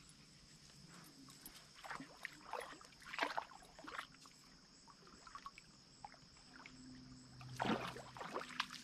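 Shallow lake water splashing lightly as a northern water snake is lowered into it and let go: a few short splashes, then a larger one near the end.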